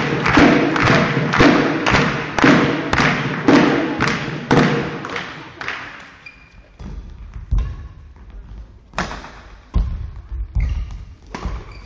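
Spectators beating out a steady rhythm, about two thumps a second, which dies away about five seconds in. Then a badminton rally: sharp racket strikes on the shuttlecock, players' footfalls thudding and shoes squeaking on the court floor.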